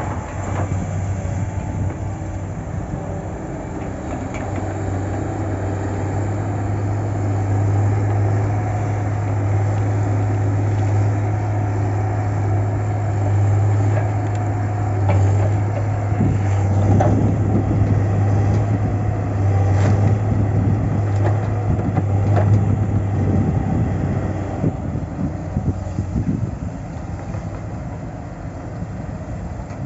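Engine of a log-loading crane running steadily, its hum rising under load in the middle stretch while pine logs are loaded onto a truck. A few sharp knocks come in the second half.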